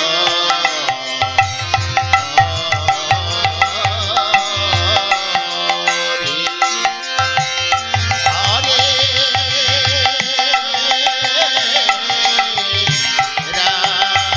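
Devotional kirtan music: a khol (Bengali clay mridanga drum) played by hand in rhythmic patterns, a harmonium holding steady tones, and a voice singing a wavering melody. The drum's deep strokes drop out briefly twice.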